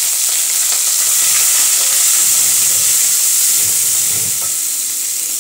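Garlic and ginger frying in hot oil in a pot, sizzling with a steady hiss as they are stirred with a wooden spoon.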